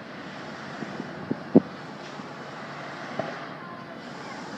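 Fireworks going off in a few short, dull bangs, the loudest about a second and a half in, over a steady background hiss.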